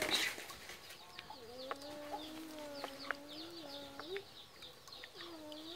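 Chickens calling: many rapid high peeps over a long, wavering lower call that rises and falls in pitch, with a few sharp clicks.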